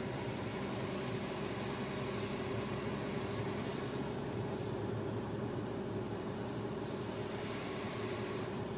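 Steady road and engine noise of a car driving on a wet road, heard from inside the cabin.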